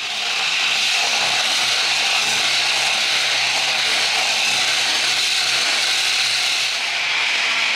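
Electric Refina disc grinder running steadily as it is pushed across the boat's painted top, grinding off the old paint.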